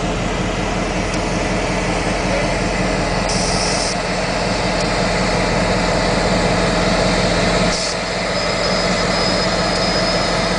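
EMD GP38 diesel-electric locomotive's 16-cylinder two-stroke diesel engine running steadily at low throttle as the locomotive creeps through the yard. A brief hiss about three and a half seconds in, and a thin high squeal near the end.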